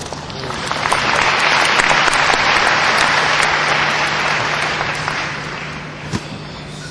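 Audience applauding, swelling up about half a second in and dying away toward the end.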